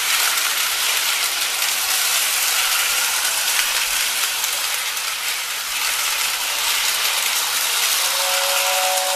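Lionel 675 O-gauge toy steam locomotive running around tinplate track, a steady mechanical whirr and rattle of its motor, gears and wheels. About eight seconds in, the 6466WX tender's whistle starts up, a steady two-tone whistle.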